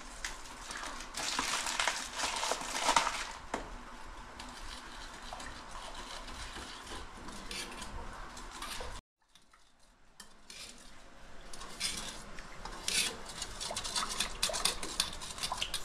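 A metal spoon stirring red jelly mix in a small metal bowl, clinking and scraping against its sides in irregular strokes. The sound cuts off abruptly about nine seconds in and resumes a second or so later.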